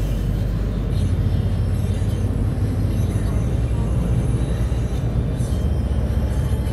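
Steady low rumble of a car cruising at highway speed, heard from inside the cabin: tyre and engine noise.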